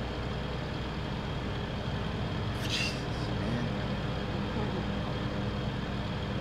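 A boat's engines running at a steady idle, heard from the inside helm, with a brief high hiss about two and a half seconds in.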